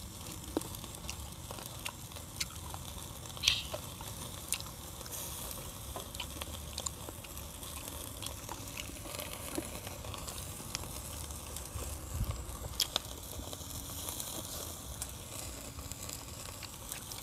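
Food sizzling over a small charcoal brazier, with the fire crackling and occasional sharp clicks of tongs and utensils, the loudest about three and a half seconds in.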